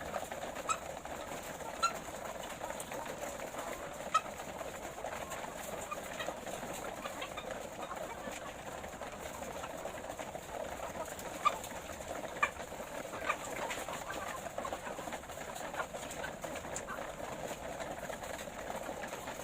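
Flock of laying hens keeping up a steady low clucking murmur, with a few sharp clicks or taps scattered through it.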